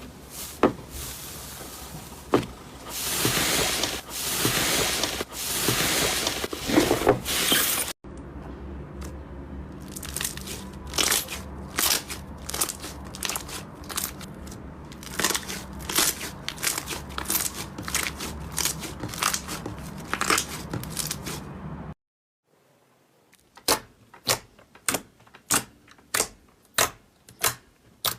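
Slime being squished, stretched and poked by hand, making crackling clicks and pops. It comes in three separate stretches: longer swelling squishes first, then irregular sharp pops, and near the end a run of single sharp clicks about two a second.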